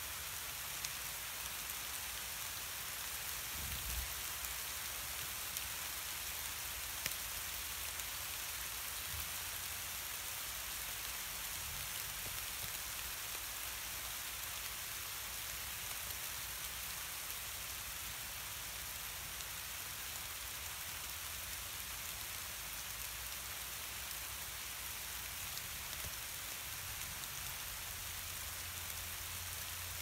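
Steady rain falling, an even hiss with a few sharp ticks of drops.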